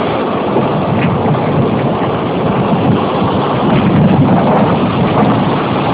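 Thunderstorm wind buffeting the microphone with heavy rain, a loud steady rushing that swells a little about four seconds in.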